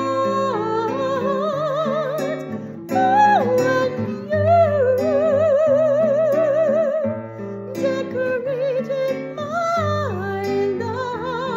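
A woman singing long held notes with a wide vibrato, sliding down between some of them, over a strummed acoustic guitar.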